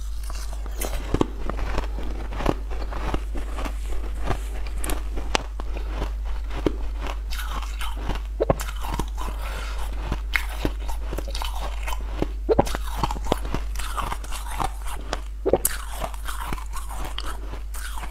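Close-miked crunching and chewing of a hard, crunchy purple crystal-shaped treat: many irregular sharp crackles as it is bitten and chewed, over a steady low hum.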